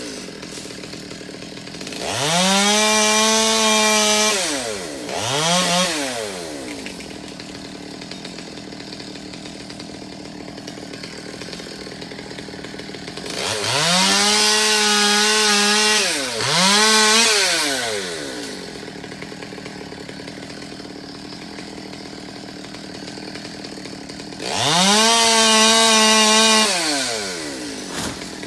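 Chainsaw idling and revved to full throttle three times, each time held for two to three seconds and then let drop, followed by a quick extra blip of the throttle.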